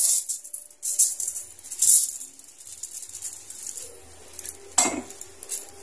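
A metal spatula scraping cooked noodles out of an aluminium pot and spreading them over a foil-lined tray: rattly scrapes with foil crinkling, coming in bursts about once a second, and a sharper knock of metal near the end.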